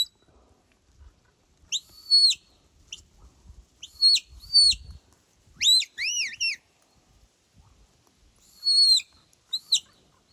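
A handler's whistle giving herding commands to a sheepdog working sheep: short, high whistle notes in several groups, some sliding up and down in pitch, with a run of quick arched notes about six seconds in.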